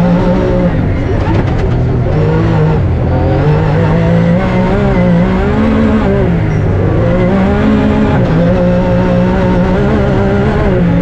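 Rally-raid car's engine running hard under load, its pitch rising and falling several times as the revs climb and drop through the gears.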